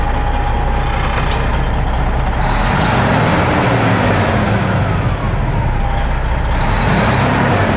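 2002 Freightliner semi truck's diesel engine heard inside the cab, revved twice from idle: each time the pitch rises quickly and then falls back slowly.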